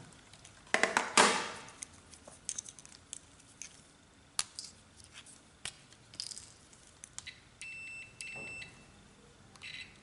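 A CD800a digital multimeter's continuity buzzer gives two short, steady, high beeps near the end, each about half a second long, as the test probes touch contacts on a steering wheel's horn circuit. The beep means the two points are connected. About a second in there is a loud rustling clatter as the meter and test leads are handled, followed by scattered light clicks.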